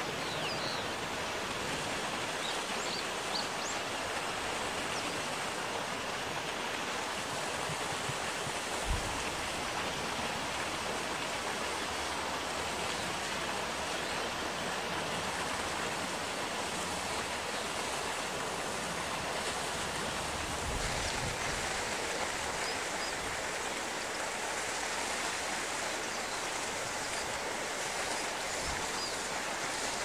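Steady rush of flowing river water, an even noise with no change in level.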